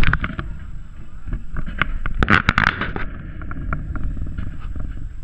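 Low rumble of wind or handling noise on the microphone, with scattered clicks and knocks and a dense cluster of sharp clicks about two to three seconds in.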